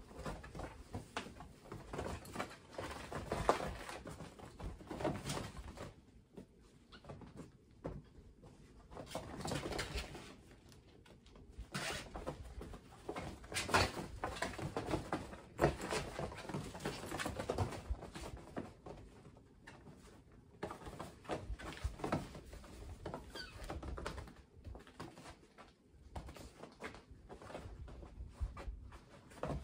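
Several kittens scampering and wrestling on the fabric floor of a pop-up playpen: irregular scuffling, rustling and soft paw patter, coming in spells with short lulls.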